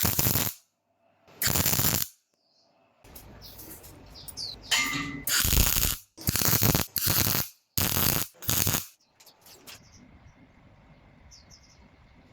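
A run of short, loud bursts of workshop tool noise, about seven of them, each starting and stopping abruptly as if cut together, with faint bird chirps in the quieter stretches between them.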